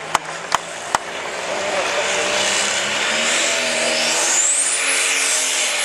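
Light Pro Stock pulling tractor's turbocharged diesel engine revving hard at the start of a pull. The engine pitch climbs, and a high turbo whistle rises over a second or so and then holds. A few sharp clicks sound in the first second.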